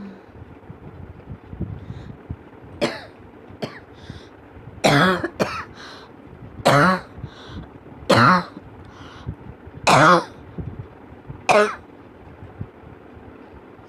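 A person coughing again and again: a few light coughs, then five loud single coughs about one and a half seconds apart.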